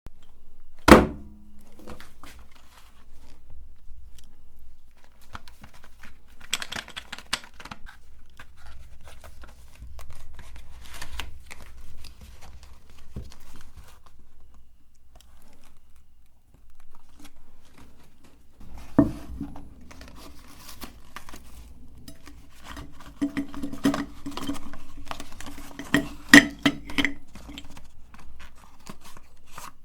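Meat grinder crushing sticks of chalk: scattered crackling and crunching, with one sharp knock about a second in. A little past halfway a steady low hum sets in under denser crunching.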